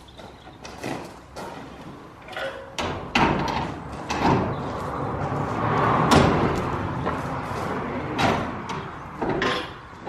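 Repeated knocks and clatters of metal frames being handled, an awning frame being pulled into place and a metal café chair with wooden slats being carried, with a longer scraping rush in the middle that is loudest about six seconds in.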